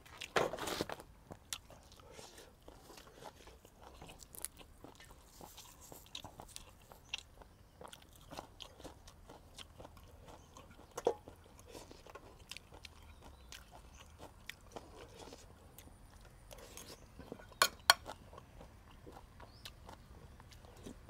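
A person chewing and crunching food, close to a lapel microphone, with scattered small clicks and handling noises. Two sharp clicks stand out near the end.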